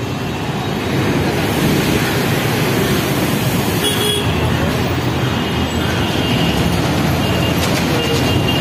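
Heavy road traffic of buses and cars passing close by: a steady, dense rumble, with a faint high-pitched squeal coming in about four seconds in.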